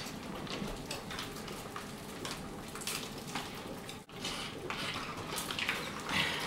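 Several people sucking juice through straws from foil Capri Sun pouches, with scattered small slurps and crinkling of the foil pouches.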